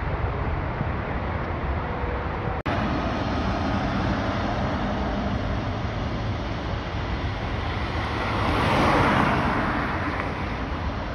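Jet engines of a Boeing 777 freighter at takeoff power on the runway, a steady rushing noise that swells to its loudest about nine seconds in as the aircraft passes, then eases. A brief dropout about two and a half seconds in.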